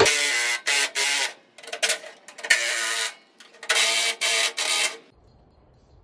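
Cordless impact driver run in about six short trigger pulls, backing out the bolts that hold a truck's front fender; it stops about five seconds in.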